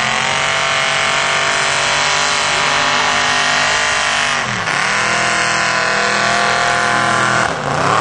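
1978 Ford F-250's 460 V8 with automatic transmission held at high revs during a burnout, rear tires spinning and smoking. The revs sag and climb back about halfway through and again near the end.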